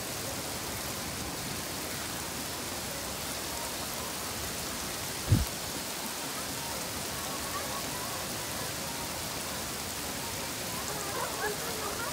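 Steady hiss of falling rain, with one short low thump about five seconds in. Faint voices come in near the end.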